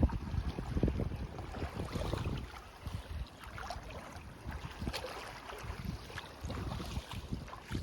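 Wind gusting against the microphone, heaviest in the first couple of seconds, over small waves washing on a sandy beach.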